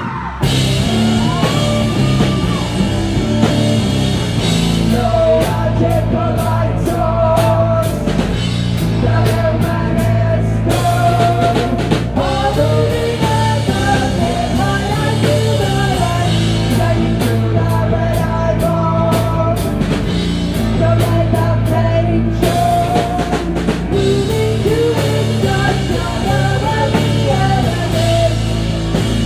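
Live rock song: electric guitar and drum kit with crashing cymbals, kicking in at full volume at the start, under a woman's sung vocal melody.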